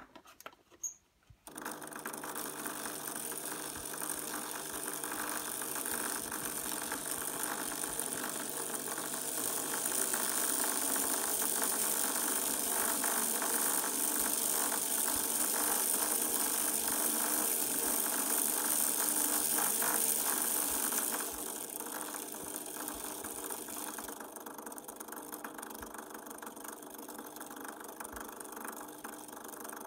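Maxon electric motor newly fitted to a Fulgurex 050TQ model steam locomotive chassis, running and turning the wheels and valve gear through its gear train: a steady whir. It starts about a second and a half in, grows louder about ten seconds in and drops back somewhat after twenty seconds.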